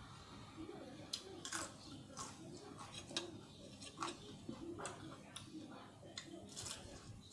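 Close-miked chewing of food, with irregular crisp clicks and wet mouth smacks, about one to two clicks a second.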